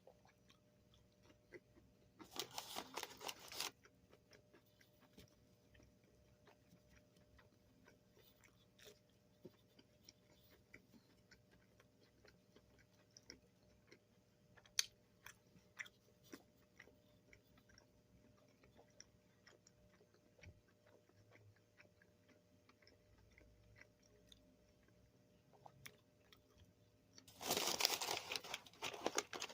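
A person chewing fast food with small, scattered mouth clicks, broken by two louder noisy bursts: one about two seconds in lasting over a second, and one starting a couple of seconds before the end.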